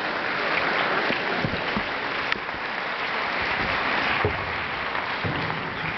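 Audience applauding steadily, with a few faint low knocks.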